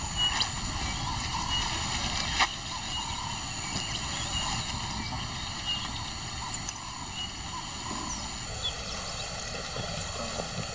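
Outdoor field ambience: a steady low rumble with faint, short, high chirps repeating, and a single sharp click about two and a half seconds in.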